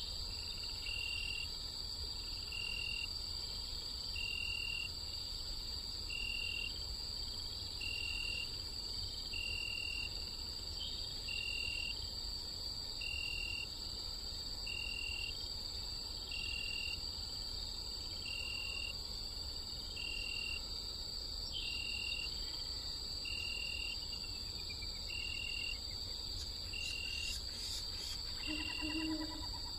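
Night forest ambience: a steady chorus of crickets and other insects, with a short high chirp repeating about every second and a half. An owl hoots near the end.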